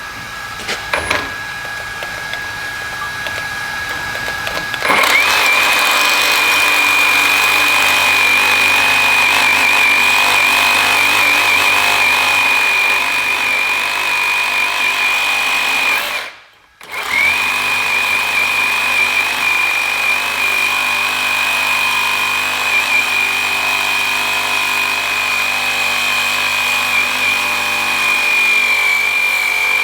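Reciprocating saw with a Diablo AMPED Steel Demon carbide-tooth blade cutting through a hardened steel bearing, with a steady high-pitched screech. It bites into the steel about five seconds in, stops briefly about halfway through, then carries on cutting.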